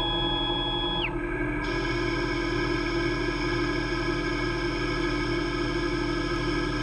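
CNC-converted Wabeco lathe running: a steady hum with many overtones from the spindle and drives, with a high stepper-motor whine that rises, holds and falls away about a second in as the tool moves up. A bit under two seconds in, a hiss joins as the turning tool bites into the leadscrew bar and starts cutting.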